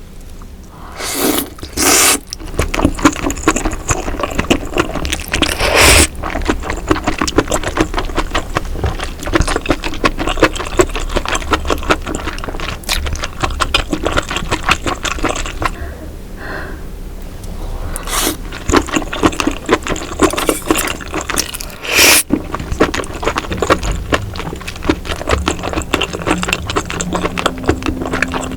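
Close-miked chewing of roe-filled baby octopus: dense, rapid wet smacking and squishing, with a few louder bursts now and then.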